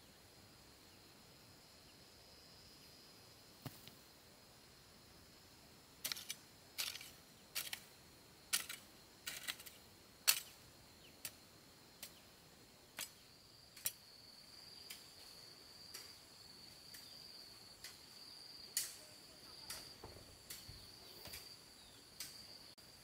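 A series of sharp knocks, irregular and about one to two a second, starting about six seconds in, over a steady high insect trill.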